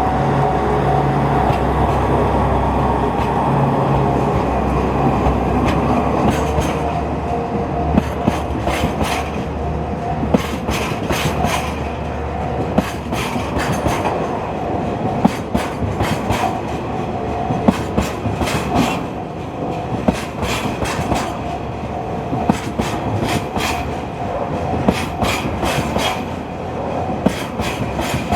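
Two DD60 diesel locomotives running steadily as they pass, their engine hum fading after about six seconds. Then a long train of empty tank wagons rolls by, its wheels clacking irregularly over the rail joints.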